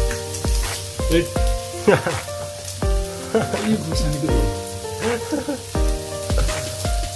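Upbeat background music with held synth chords and a kick drum about twice a second, over a steady sizzling hiss of meat frying on an electric hot plate.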